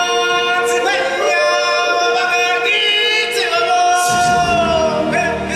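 A live stage-show vocal ensemble sings long held notes in harmony. A low bass accompaniment comes in about four seconds in.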